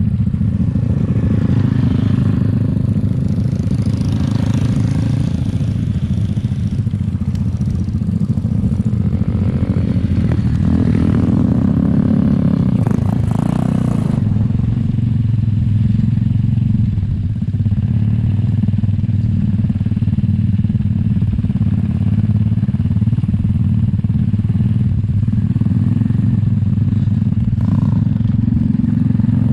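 Grass kart engine running steadily at low speed, heard from on board the kart.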